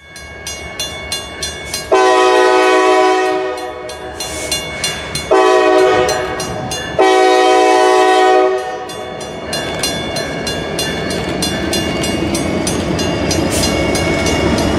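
Grade crossing bell ringing about four times a second while a Norfolk Southern freight locomotive's air horn sounds three blasts, about two, five and seven seconds in. After the horn stops, the train's rumble and wheel clatter carry on as it rolls through the crossing, with the bell still ringing.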